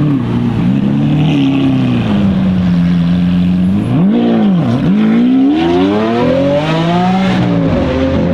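Lamborghini Aventador's 6.5-litre V12 running at a low steady note, then a quick rev about four seconds in, then accelerating away with rising pitch. The pitch drops sharply at an upshift near the end and climbs again.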